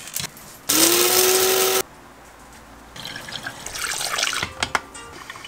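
Electric blade coffee grinder whirring for about a second, its motor pitch rising slightly as it spins up. A couple of seconds later, water is poured from a glass carafe into a drip coffee maker's reservoir.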